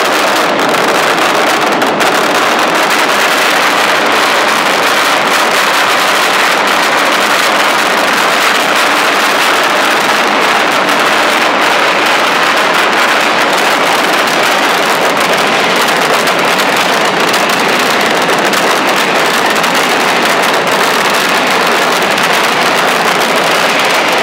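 Mascletà firecrackers (masclets) exploding in an unbroken barrage, the bangs so densely packed that they merge into one continuous, very loud rattle with no pauses.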